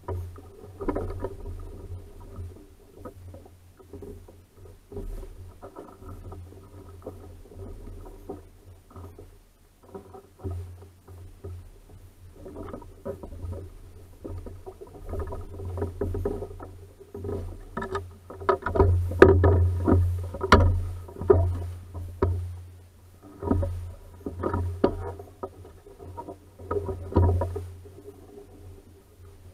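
Water lapping and knocking against the hull of a small sailing dinghy under way, with irregular splashes that grow louder past the middle, over a steady low rumble of wind on the microphone.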